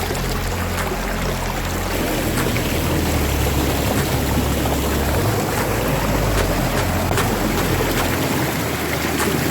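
Waterfall's steady rush of water, an even hiss at a constant level, with low held tones underneath.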